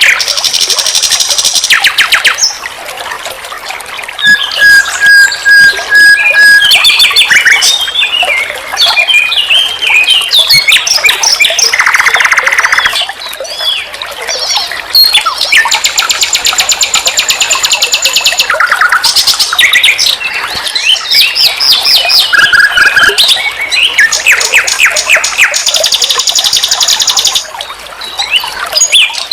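A nightingale singing a long, varied song with hardly a pause. It strings fast rattling trills and rapid note series together with short pitch glides and a run of level, pure whistled notes a few seconds in.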